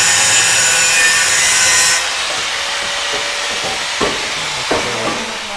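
A power tool cutting through a car's exhaust pipe with a loud, high-pitched whine and rasp, stopping abruptly about two seconds in. Two sharp knocks follow near the end.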